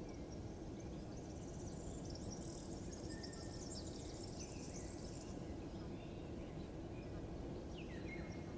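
Small birds chirping high and fast for a few seconds, then a single downward-sliding call near the end, over a steady low rumble of background noise.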